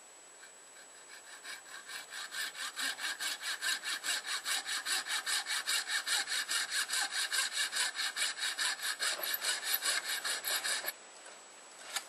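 Hand saw cutting through an antler tine in quick, even back-and-forth strokes. The strokes build up over the first couple of seconds and stop abruptly near the end, with the cut only partway through.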